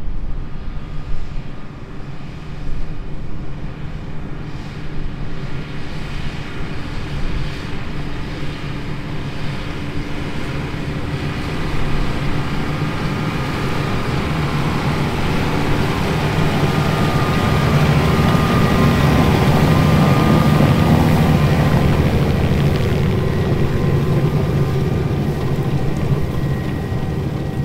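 John Deere tractor pulling a hay merger through windrowed alfalfa. Its engine runs steadily and grows louder as it approaches, is loudest as it passes about two-thirds of the way in, then eases off as it pulls away.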